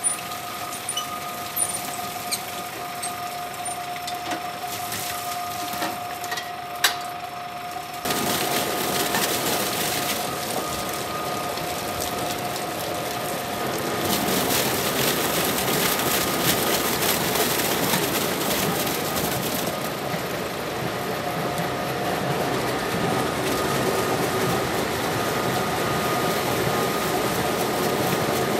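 A tractor engine runs steadily with a constant hum. There is a sharp clunk just before seven seconds. From about eight seconds a louder rushing noise joins and grows again around fourteen seconds, as whole grape clusters pour from the tipping trailer's hatch into the stainless receiving hopper.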